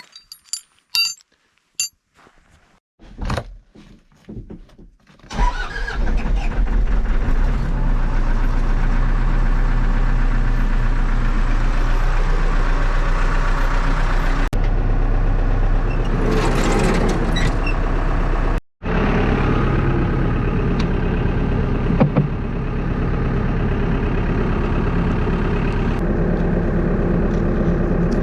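A few clicks and knocks, then a backhoe loader's diesel engine starts about five seconds in and runs steadily.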